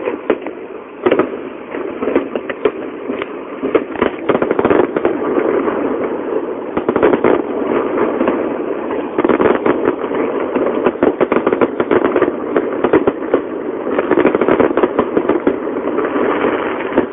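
Fireworks barrage: aerial shells bursting overhead with a rapid, unbroken crackling and popping, and louder bangs every second or two.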